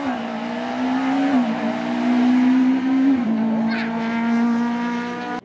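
Citroën Saxo rally car's four-cylinder engine running hard at high revs, its pitch dropping three times as it shifts up: about a third of a second, a second and a half and three seconds in. The sound cuts off abruptly at the end.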